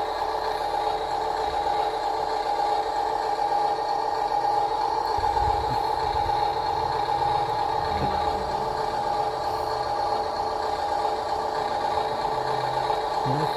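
Huina 1573 remote-control dump truck running: a steady whine with a light mechanical rattle.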